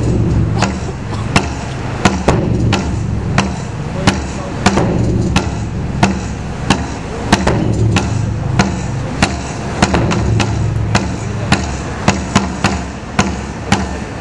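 Backing music with a steady beat: a sharp percussive hit about every two-thirds of a second over a deep, dense accompaniment.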